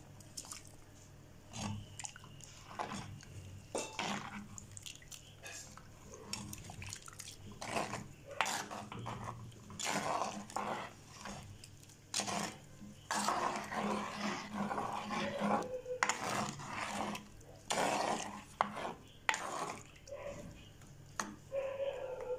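A coconut-shell ladle stirring coconut-milk gravy in a clay pot, with repeated scrapes and knocks of the ladle against the pot, plus clinks of a bowl as vegetables are tipped in.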